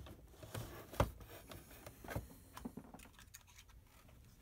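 A few faint clicks and taps from a Star SP700 printer's ribbon carriage mechanism being worked by hand: the small actuator arm moving the carriage up and down and its spring snapping it back, the sharpest click about a second in.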